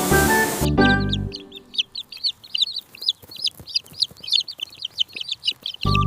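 A brood of 12-day-old chicks peeping, many short high peeps in quick succession for about four seconds. Background music plays for the first second or so and comes back in near the end.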